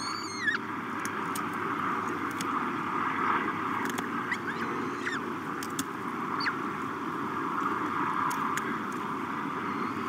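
Peregrine falcon chicks giving a few short begging calls that fall in pitch while being fed, over a steady background rumble and hiss.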